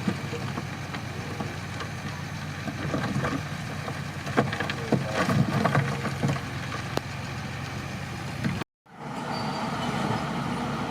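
Crawler bulldozer's diesel engine running steadily, with several sharp clanks in the middle. The sound cuts out abruptly for a moment near the end, then the engine picks up again.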